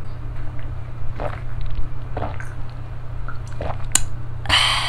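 A man gulping down a shot of soju: faint swallowing and mouth sounds, a sharp click a little before the end, then a loud breathy exhale after the shot starting near the end. A low steady hum runs underneath.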